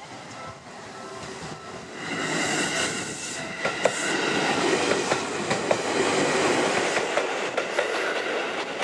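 Seibu 101 series electric train running close by, its wheels clicking over rail joints with some squeal. It gets much louder about two seconds in, after a level-crossing warning bell rings at first.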